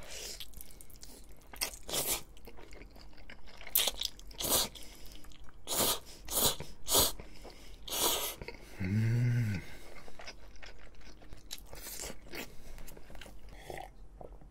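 Close-up eating sounds of spaghetti with meatballs: noodles slurped and chewed in a string of short, sharp wet smacks. About nine seconds in, a brief low hummed 'mm' from the eater.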